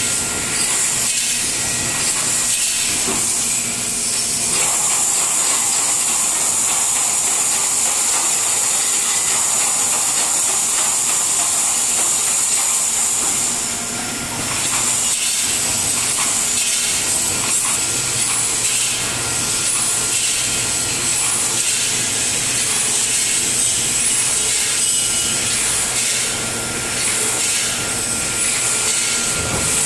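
Steady, loud hissing machinery noise from a running steel wire panel mesh welding line, with faint repeated ticks in the second half.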